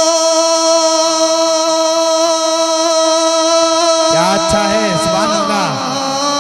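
A man's voice singing a naat through a public-address system, holding one long note, then about four seconds in breaking into fast wavering ornaments before settling on a new note near the end.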